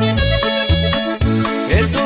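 Chihuahua-style norteño music playing an instrumental stretch without singing, with sustained melody lines over a steady bass and drum beat.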